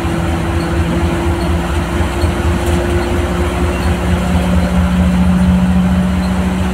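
Bus engine and drivetrain heard from inside the cab while under way: a low throbbing rumble with a steady droning hum that grows louder a little past halfway, over steady road noise.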